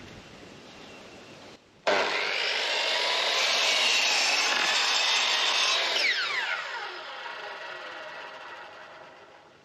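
Electric mitre saw cutting through an old timber board, starting suddenly about two seconds in. About six seconds in the motor is released and winds down with a falling whine that fades away.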